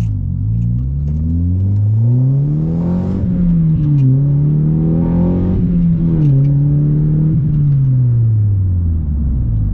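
Honda Civic Si's four-cylinder engine accelerating through the gears: revs climb, drop back sharply at upshifts about three and four seconds in, climb again, then fall slowly as the car eases off.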